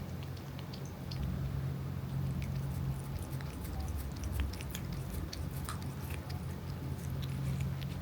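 Chewing and crunching of food: many small, irregular, crisp clicks, denser in the second half, over a steady low hum.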